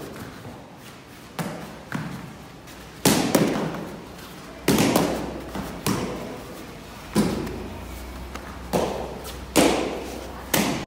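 Taekwondo kicks striking handheld kicking paddles: about a dozen sharp slaps at irregular intervals, some coming in quick pairs, the loudest from about three seconds in.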